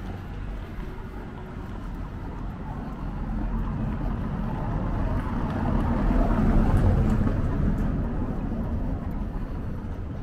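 A road vehicle passing, its noise swelling to its loudest about two-thirds of the way through and then fading.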